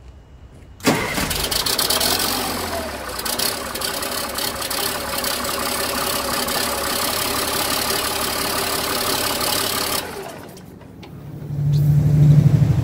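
An LMTV military truck's turbo diesel engine catches about a second in on a remote start, runs for about nine seconds and is then shut down. It is the first run after a new hydraulic pump was fitted, and it is stopped because a hydraulic fitting is leaking fluid. A man's voice comes in near the end.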